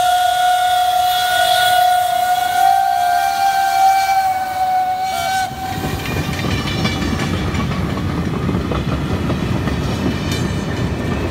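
Steam locomotive whistle blowing one long steady note that ends about five and a half seconds in. Then the rumble of passenger coaches rolling past close by, with wheels clicking on the rails.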